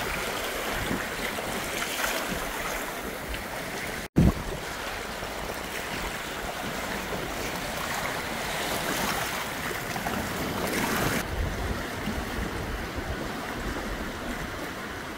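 Gale-force wind and waves breaking on a rocky sea-loch shore, with wind buffeting the microphone. The sound breaks off abruptly and jumps about four seconds in, and turns duller at about eleven seconds.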